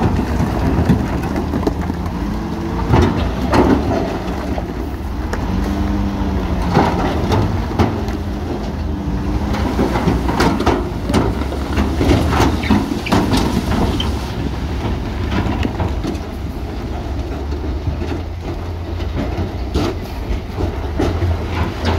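Heavy diesel earthmoving machinery running with a steady low rumble, with repeated metallic clanks and knocks and a wavering whine that rises and falls in pitch.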